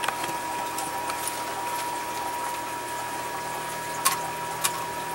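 Steady faint hiss with a thin, steady high whine, broken by two light clicks about four seconds in as fingers work parts loose inside an Xbox 360's metal chassis.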